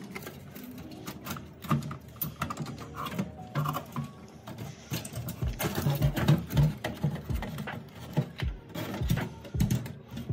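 Hands handling cables and the motherboard inside a steel desktop PC case: a busy stream of small plastic and metal clicks, taps and rattles, with dull knocks scattered through it.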